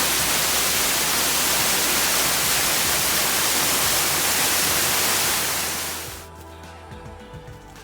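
Steady roar of falling water, a waterfall's even rush, that fades out about six seconds in as soft music with held notes comes in.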